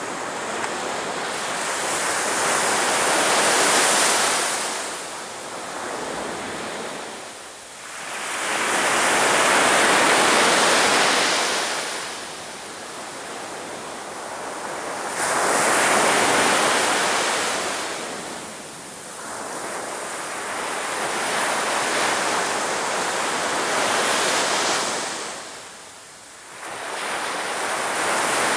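Sea waves breaking on a beach: the surf swells and fades four times, about every six seconds.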